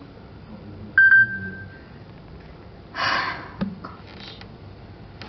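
Smartphone text-message notification: a single short, high ping about a second in, ringing away over about a second. About two seconds later, a short breathy burst and a click.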